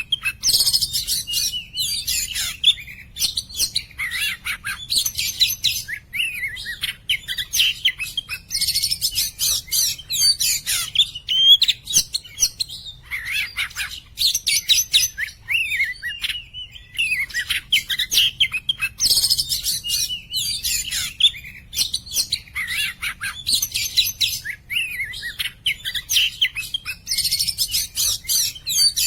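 Oriental magpie-robin singing continuously: a fast, varied stream of clear whistles, chirps and sliding notes in phrases that follow one another without a break.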